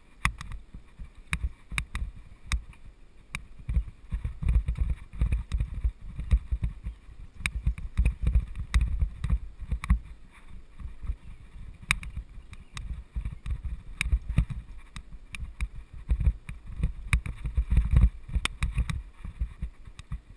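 Mountain bike riding over a dirt singletrack, picked up by a camera mounted on the bike: an uneven low rumble of trail bumps and wind on the microphone, with frequent sharp clicks and rattles from the bike.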